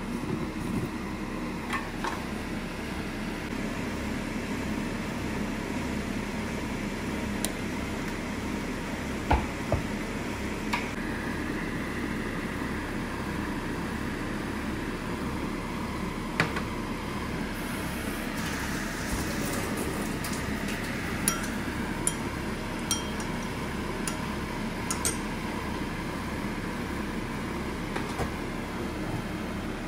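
Food simmering in liquid in a covered stainless steel pan: a steady bubbling hiss with scattered sharp clicks and clinks, over a low pulsing hum.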